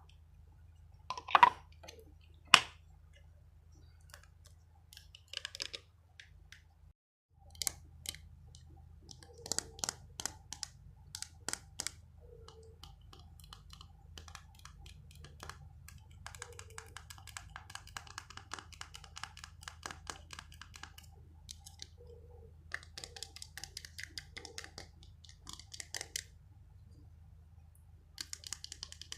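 Close-miked ASMR trigger sounds of a small object being handled: a few sharp taps or clicks, two loud ones in the first three seconds, then scattered clicks and runs of fast, light tapping or scratching, over a low steady hum.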